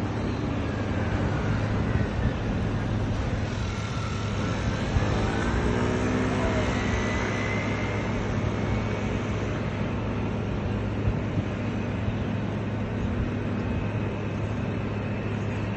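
Urban street traffic: a steady rumble of passing vehicles with a constant low hum, and one engine rising in pitch about five seconds in.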